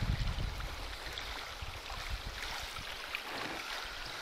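Wind buffeting the microphone in low gusts, strongest near the start, over the faint wash of small waves lapping at the shore.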